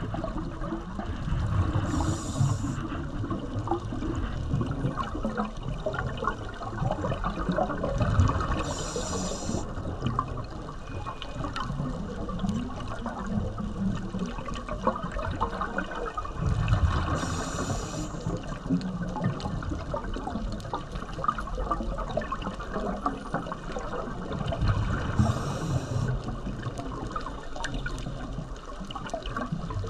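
Underwater scuba diver's breathing: four bursts of exhaled bubbles from the regulator, about every eight seconds, over a steady low rush and gurgle of water.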